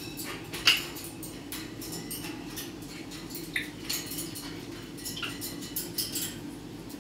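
Parrot making a run of sharp clicks and pops, the loudest about a second in, with a few short high chirps mixed in: its imitation of crackling fireworks.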